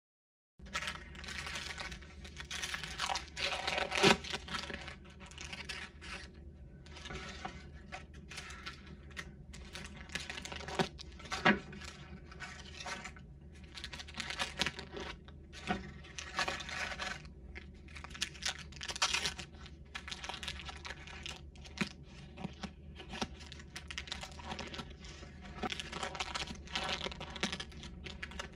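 Parchment-paper muffin liners crinkling and tearing as baked chocolate-chip buns are lifted from a metal tray and peeled, with the crisp crust crunching. A run of rustling bursts starts about half a second in, with a few sharper cracks, the loudest about four seconds in.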